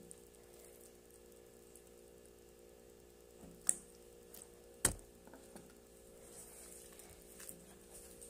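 Quiet room under a faint steady hum, broken midway by two sharp clicks about a second apart, with a few softer ticks around them.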